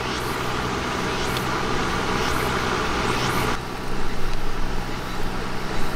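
Makita CF301DZ cordless fan running, a steady even rush of air that breaks off abruptly about three and a half seconds in.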